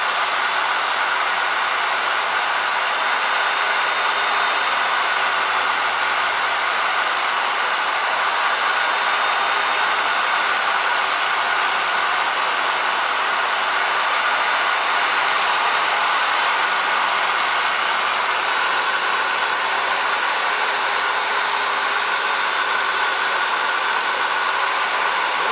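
Angle grinder running steadily with a sandpaper disc, grinding the steel edge of an axe head to sharpen it, a little louder about halfway through.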